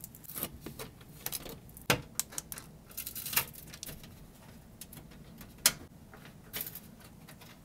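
Irregular clicks, taps and light scrapes of a screwdriver working the fasteners out of a car's under-engine skid plate, with a sharp click about two seconds in and the loudest one near six seconds.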